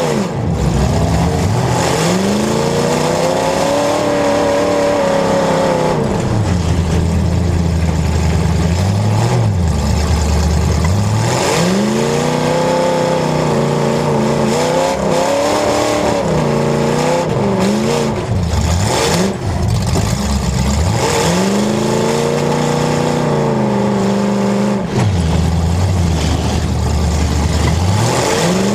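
A demolition derby car's engine repeatedly revving up and dropping back, each climb and fall lasting a few seconds, with low steady running in between. A few short knocks cut through it.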